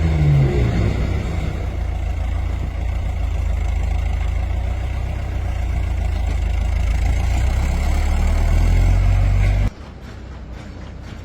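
Pumice block production machinery running with a loud, steady low hum and noise, which cuts off suddenly near the end to a much quieter background.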